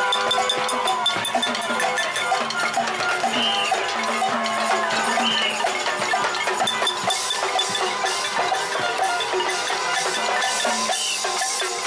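Street victory celebration: rapid, constant clanging of pots and cowbell-like percussion, with car horns sounding held notes and voices shouting over it.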